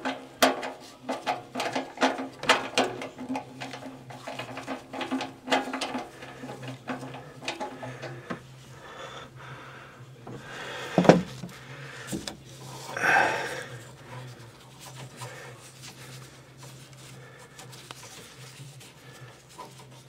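Hands and a screwdriver working on a furnace blower motor's wiring and metal housing: quick clicks and knocks for the first several seconds, a sharp knock about halfway and a short scrape just after, over a steady low hum.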